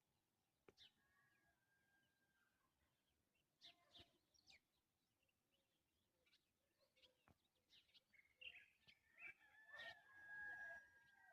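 Faint birds chirping: scattered short chirps with a few thin whistled notes, growing busier and louder near the end.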